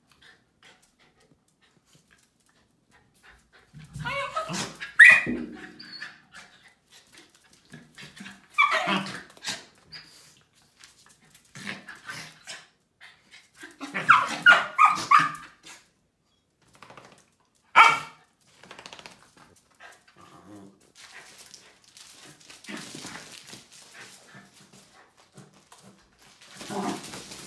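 Australian Terriers barking and vocalizing in short separate bouts, about half a dozen, with fainter sounds between them in the second half.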